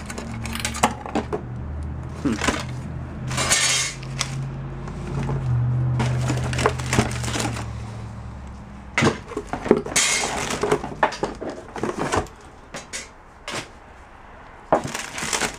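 Small items being rummaged through in a box, metal pieces clinking and clattering in a string of irregular knocks. A low hum runs underneath and stops about eight and a half seconds in.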